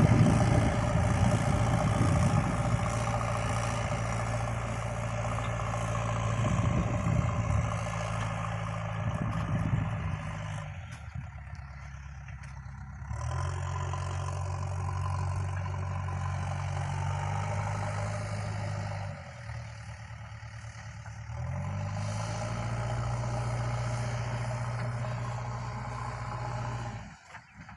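JCB backhoe loader's diesel engine working, dropping back to a lower note about 11 s and 19 s in and revving up again a couple of seconds later each time.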